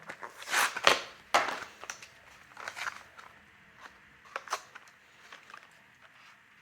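Die-cast toy car packaging being handled and opened: plastic blister and card crinkling and crunching. The loudest crunching comes in the first second and a half, followed by scattered lighter crackles and ticks.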